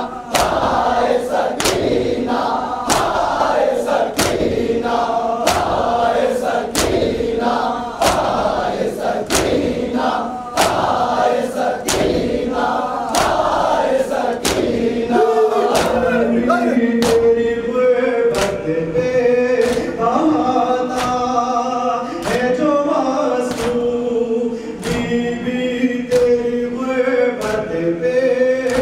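Crowd of men chanting a noha, a Shia mourning lament, in unison, with the slaps of matam (hands beating on chests) in time, about three every two seconds. A single lead reciter's voice stands out more in the second half.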